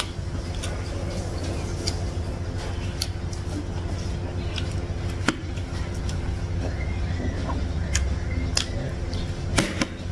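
Close-miked eating sounds: wet chewing and mouth clicks, with a spoon clinking against a curry bowl in a few sharp clicks near the end, over a steady low rumble.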